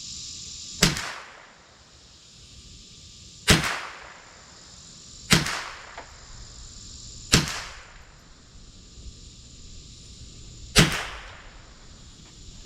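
Five single shots from a Marlin Model 60 semi-automatic .22 rifle, fired one to three seconds apart at a target while sighting in a newly mounted scope. Each is a short sharp crack with a brief echoing tail.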